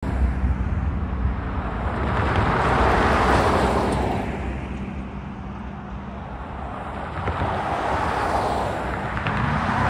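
Two cars passing by on the highway, their tyre and road noise swelling and fading away, the first about three seconds in and the second near the end, over a steady low traffic rumble.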